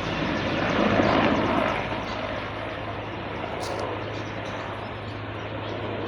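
Aircraft flying over, a steady engine drone with a constant low hum.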